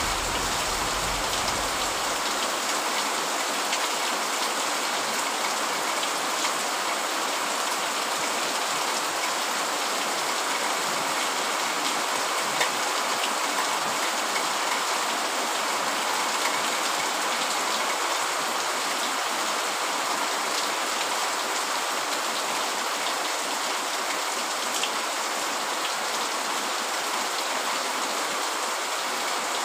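Steady heavy rain, an even hiss with the odd single drop ticking through. A low thunder rumble dies away in the first second or two.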